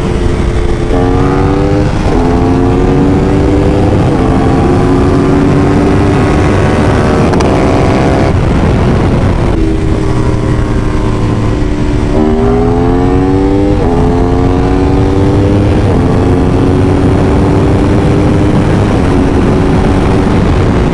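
Sport motorcycle engines at highway speed: the onboard Aprilia Tuono V4 Factory with a KTM Super Duke 1290 R riding alongside. The engine pitch climbs and steps back down several times under hard throttle, over a heavy, steady rush of wind on the microphone.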